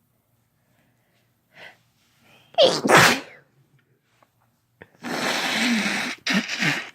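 A person sneezing: a quick in-breath, then a loud sneeze about two and a half seconds in. About five seconds in comes a longer, noisy blast of breath, followed by two short bursts.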